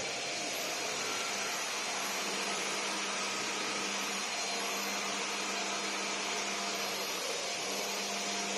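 CNC woodworking gantry router running: a steady machine hiss with faint steady tones underneath.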